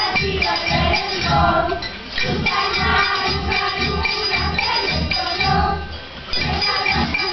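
A children's group singing a carol in unison to the steady beat of shaken and struck tambourines, their jingles ringing throughout, with short breaks between phrases.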